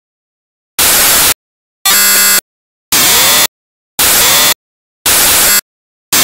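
Loud bursts of static hiss, each about half a second long, repeating about once a second with dead silence between. About two seconds in, one burst carries a buzzing tone along with the hiss.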